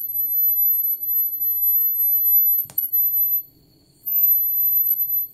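A steady, very high-pitched whine, the loudest thing heard, cuts out for about half a second a little past halfway and then returns. Under it is the faint low rush of the flameworking burner's flame, with one sharp click near the middle.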